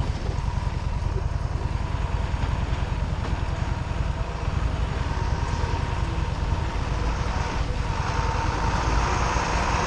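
Harley-Davidson Street 750's V-twin engine running at low speed on a rough dirt road, its firing pulses steady throughout. The noise grows a little louder in the last couple of seconds as an oncoming truck draws near.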